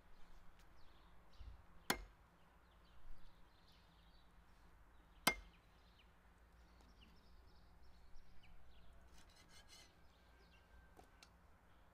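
Two sharp chops of a meat cleaver cutting quail on a wooden chopping block, about three seconds apart, with faint small clicks of handling between.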